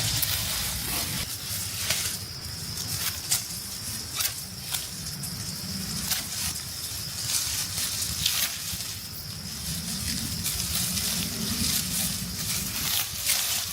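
Dry rice stalks rustling and crackling irregularly as the ripe panicles are picked by hand, over a steady high-pitched hiss.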